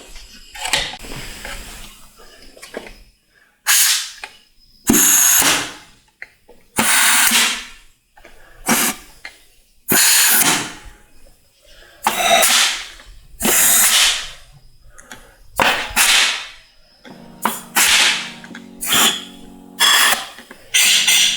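A compressed-air blow gun hissing in a dozen or so short blasts into the fluid passages of a 6L80 transmission case: an air check of the clutch circuits to confirm they apply and seal.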